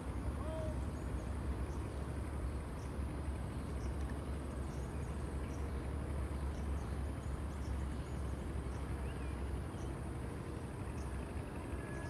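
Steady outdoor background noise with a low rumble, and a few short, faint bird chirps now and then.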